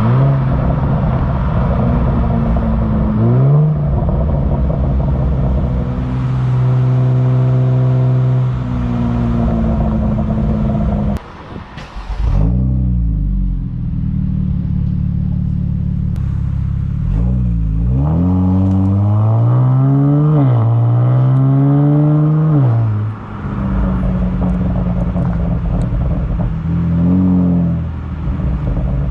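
Kia Stinger GT's 3.3-litre twin-turbo V6 exhaust, with a pop-and-bang tune, as the engine runs and the revs rise and fall several times. A few sharp cracks come from the exhaust in the middle as the revs drop.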